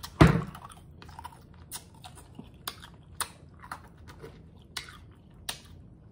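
Ice cubes being crunched between the teeth close to the microphone: one loud crunch just after the start, then a string of sharp cracks about twice a second.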